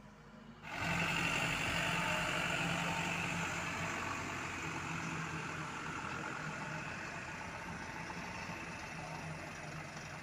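Isuzu Elf dump truck's diesel engine running as the truck drives past, starting abruptly about a second in and slowly fading as it pulls away.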